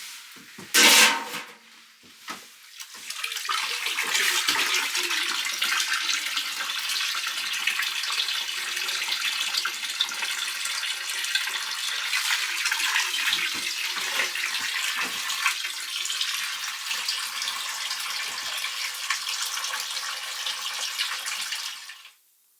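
Water pouring steadily into a container, after a sharp knock about a second in; the pouring stops abruptly near the end.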